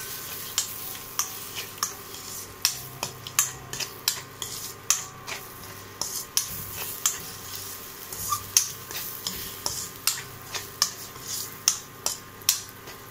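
A metal spatula scraping and knocking against a metal kadai as scrambled egg, tomato and onion are stirred to mix in chilli powder, with irregular strikes about two or three a second over a faint frying sizzle.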